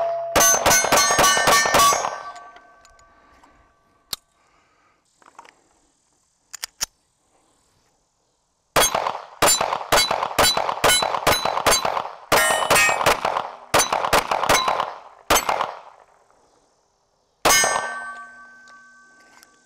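9mm pistol shots fired in quick strings at steel targets, each hit ringing the steel plates with a clang that lingers between shots. A quiet pause of several seconds in the first half, then more rapid strings, the last shot near the end leaving the steel ringing.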